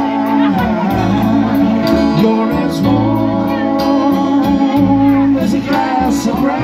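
Live acoustic band music with guitar over a bass line that changes notes about once a second, and some singing.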